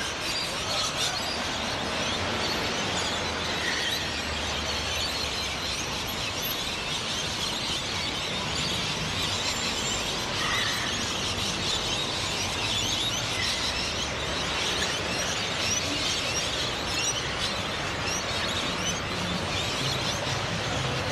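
Many birds chirping over a steady hum of street traffic.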